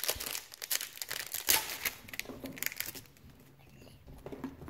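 Foil wrapper of a Pokémon trading-card pack crinkling and tearing open: a dense run of crackles for the first few seconds, loudest about halfway through that run, then quieter rustling.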